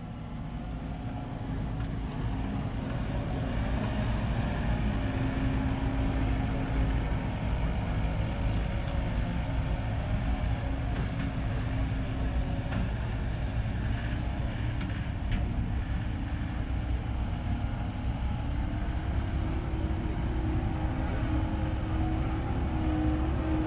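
Skid steer loader's diesel engine running steadily while the machine works in a dirt pit, with a steady whine that rises a little in pitch near the end.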